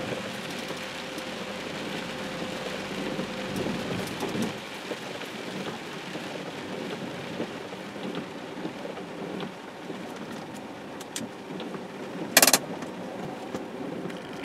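Rain on a car's roof and windscreen, heard from inside the car as a steady patter, with one sharp knock near the end.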